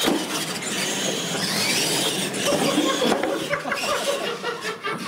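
Brushed electric motors of RC monster trucks whining as they race, rising and falling in pitch over tyre and chassis noise on a hard floor. In the last couple of seconds there is a run of sharp clatters as one truck tumbles onto its side.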